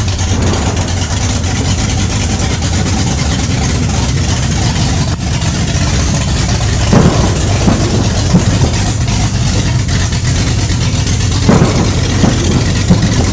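A steady, loud machine drone, like a running motor, with a few short knocks about halfway through and again near the end.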